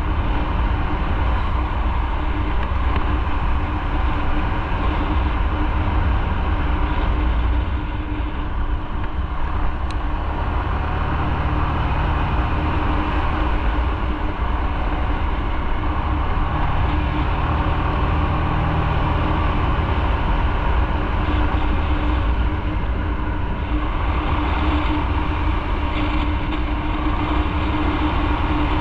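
Motorcycle on the move: steady engine and wind-rush noise on an onboard microphone.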